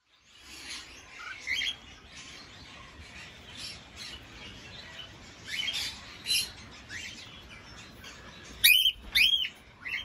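A flock of cockatiels chirping and calling, with scattered short chirps throughout and two loud calls close together near the end, each rising and then falling in pitch.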